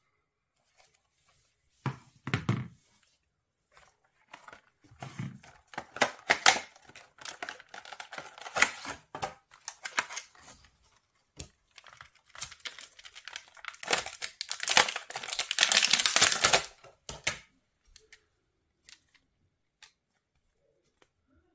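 Crinkling and rustling of a clear plastic blister pack and its paper insert being handled and opened to take out a phone case, in two long spells, the second the louder. A short handling bump comes about two seconds in.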